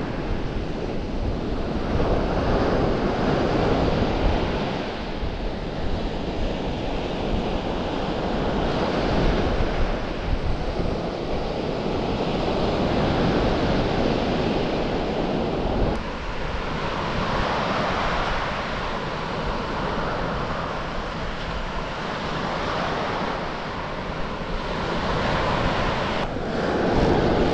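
Surf washing onto the beach, swelling and ebbing every few seconds, with wind on the microphone.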